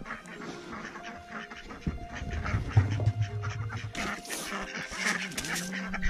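Domestic ducks quacking, over background music with held notes.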